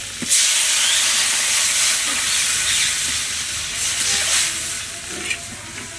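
Water poured into a hot kadai of frying taro and spice paste, hitting the oil with a sudden loud hiss of steam about a third of a second in that slowly dies down over the next few seconds.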